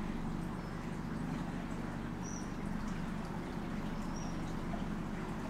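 Small boat outboard motor running steadily at low canal speed. A few faint, short, high bird chirps sound over it.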